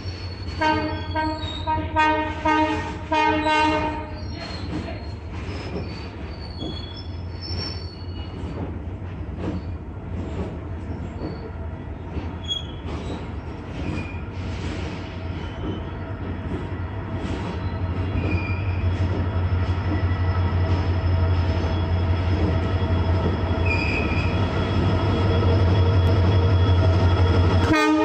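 EMD WDG-4 diesel locomotive sounding its horn in three short blasts, then its 16-cylinder two-stroke engine's low drone growing steadily louder as it approaches hauling a freight train.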